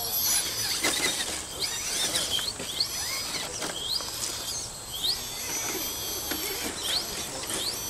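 Electric motor of an RC scale crawler truck whining in short rising throttle blips, repeated every second or so, as the truck inches over a rock, with a few light clicks.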